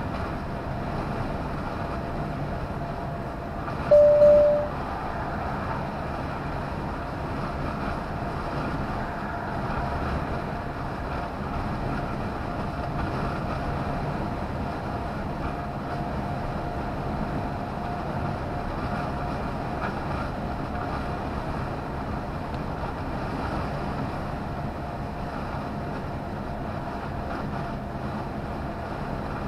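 Steady engine and road noise inside a lorry's cab cruising at motorway speed, with a faint steady whine and a short loud beep about four seconds in.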